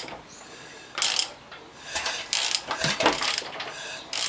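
Ratcheting clicks and metallic clatter in several short spells as the Honda K24 engine is turned over by hand. The owner thinks the sound is the timing chain skipping a tooth.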